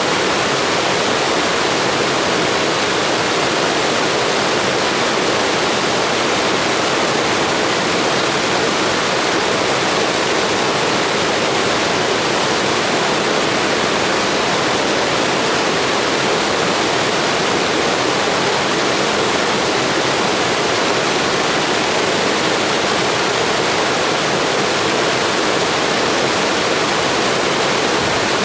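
Blizzard wind: a steady, even rushing hiss with no gusts or changes in level.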